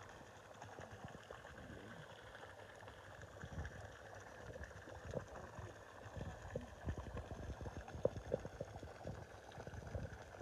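Faint trickling, bubbling water with scattered light knocks and taps.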